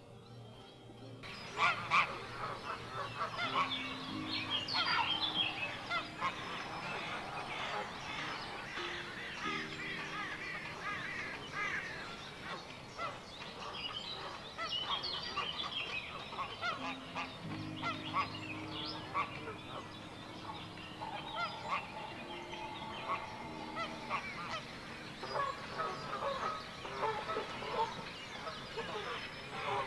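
A grey heron colony calling: a dense chorus of many short overlapping calls from the birds in the nest trees, starting abruptly about a second in.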